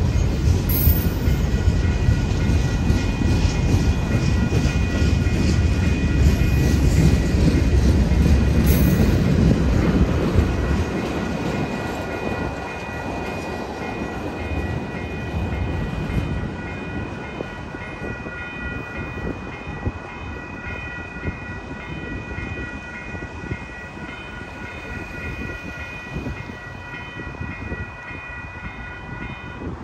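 Union Pacific freight train rolling through a grade crossing, its wheels rumbling and clacking over the rails, then fading after about ten seconds as the train passes. The crossing's warning bell keeps ringing throughout.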